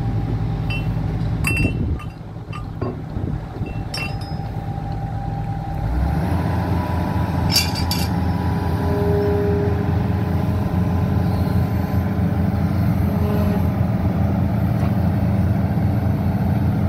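Hitachi hydraulic excavator's diesel engine running, with a few sharp metal clinks in the first half as steel pins and tools strike the bucket linkage. About six seconds in, the engine picks up and runs louder under hydraulic load as the arm lifts away.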